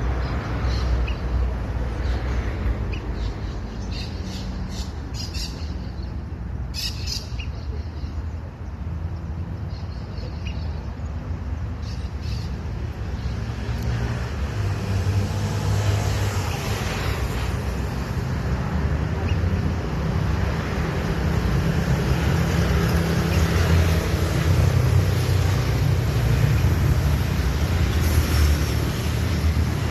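Steady rumble of road traffic, louder in the second half, with a few short, high bird calls in the first dozen seconds.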